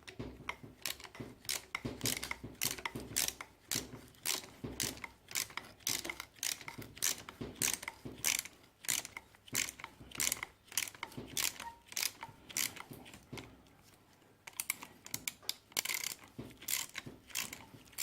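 Ratchet wrench on a socket extension clicking in quick runs as a seized, long-unremoved spark plug with dry threads is worked out of a Kawasaki Sherpa 250's cylinder head. The clicking pauses for about a second near the end, then starts again.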